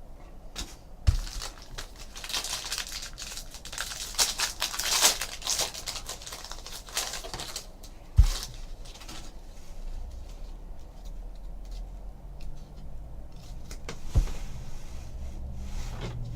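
Foil wrapper of a baseball card pack being torn open and crinkled, with three dull thumps on the table spread through it.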